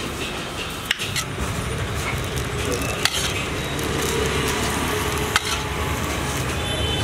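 Cooked biryani rice being scooped by hand from a large aluminium pot into a foil pouch, with steady rustling and a few sharp clicks.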